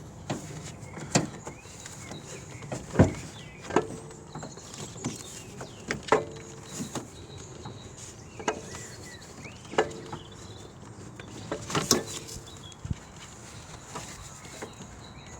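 Irregular metal knocks and clinks, some ringing briefly, as an alternator is twisted and worked past pipes and brackets in a car's engine bay, trying to find a way out.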